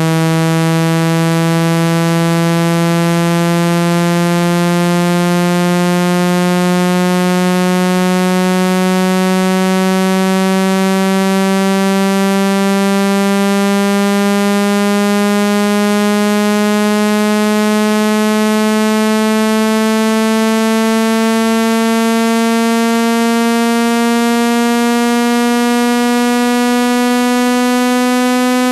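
Speaker-cleaning water-eject tone: a low, buzzy electronic tone rich in overtones, rising slowly and steadily in pitch. The sweep is meant to vibrate a phone speaker's diaphragm and push water out of it.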